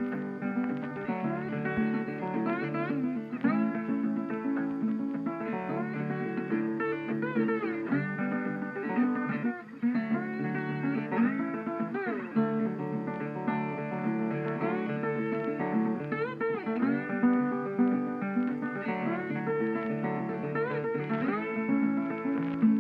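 Background music: acoustic guitar playing, with sliding notes.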